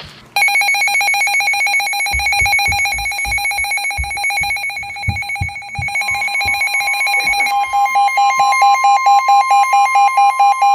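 Weather alert radio sounding its alarm: a fast, harsh pulsing electronic beep, heralding a new severe thunderstorm warning. A steady higher tone joins about six seconds in, and the beeping then turns into a louder pulse about three times a second. A few low thumps sound under it in the middle.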